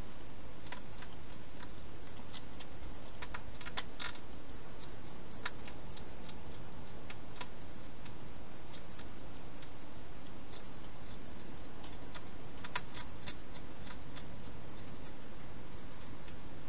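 A hedgehog feeding at bowls inside a plastic feeding station: scattered small sharp clicks and crunches of chewing, bunched a few seconds in and again near the end, over a steady hiss.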